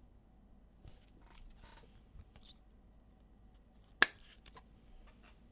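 Faint rustling and light ticking of trading cards being handled and flipped, with one sharp click about four seconds in.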